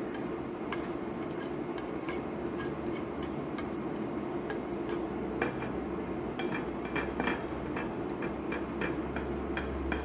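A cooking utensil tapping, scraping and clinking against a frying pan and plate as fried rice is scooped out onto the plate, over a steady low hum.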